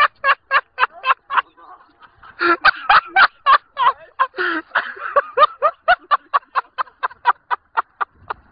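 A man laughing hard in rapid, repeated ha-ha bursts, about four or five a second, with a brief lull about two seconds in.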